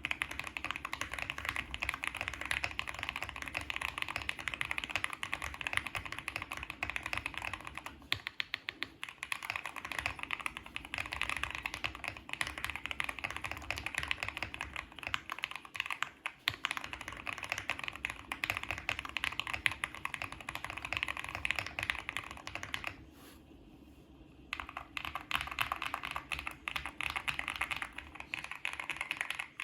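Continuous typing on a Qwertykeys QK65 mechanical keyboard with lubed JWK Alpaca linear switches, a POM plate, Cherry-profile PBT keycaps and foam-filled case. The typing stops briefly about 23 seconds in, then resumes.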